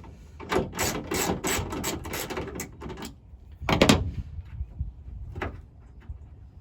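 Plastic tail light housing being wiggled and pried off its mounting clips: a quick run of clicking and rattling, then a loud knock about four seconds in and a smaller one a second and a half later.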